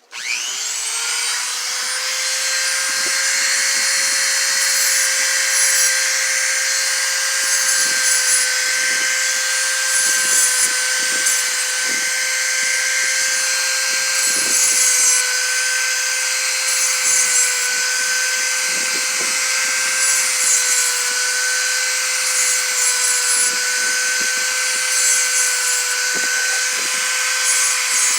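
A small high-speed rotary tool starts up, spinning up to speed over the first second, then runs with a steady high whine. Irregular scraping comes through as the bit grinds and hones the inside of a lock pick's hook.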